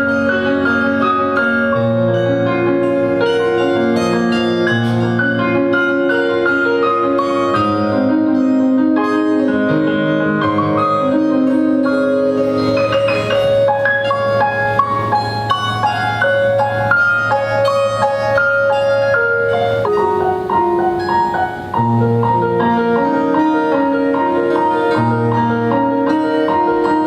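Gusli and piano playing an improvised duet: plucked gusli strings ringing over piano chords and melody.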